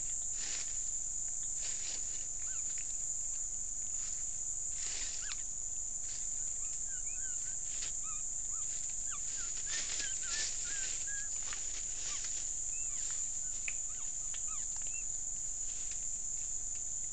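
Steady high-pitched insect drone of the forest, with scattered short high chirps, thickest around the middle, and a few brief rustles.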